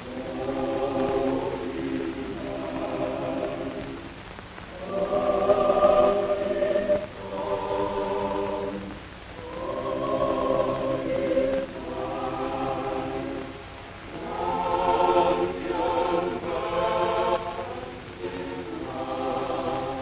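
A choir singing slow, held phrases of one to two seconds each, swelling louder twice.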